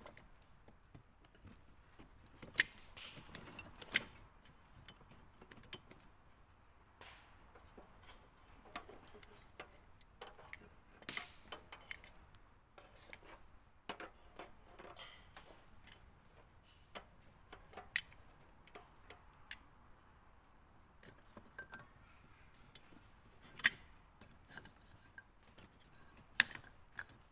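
Irregular light clicks and taps, with a few sharper knocks, as of cooking gear being handled.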